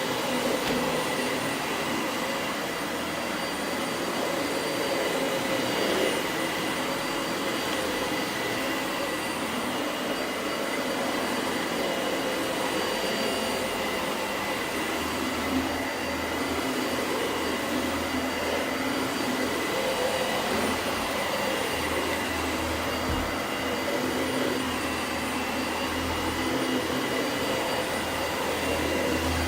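Dyson Light Ball Animal upright vacuum cleaner running steadily while vacuuming a rug: an even rush of air with a steady high motor whine over it.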